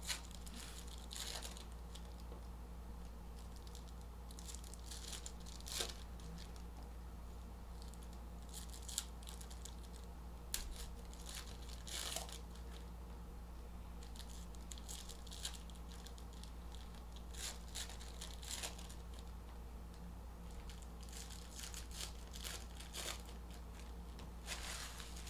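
Plastic wrapping crinkling and tearing in short, scattered rustles as trading card boxes and packs are opened, over a faint steady low hum.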